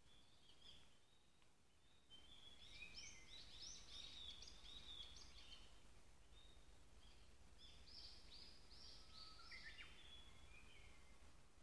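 Wild songbirds singing: a run of quick, high chirping notes about two seconds in, and another run about eight seconds in, over a faint low rumble.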